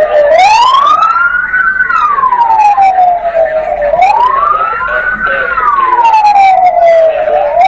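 Fire truck siren on a slow wail, its pitch rising and falling about every four seconds.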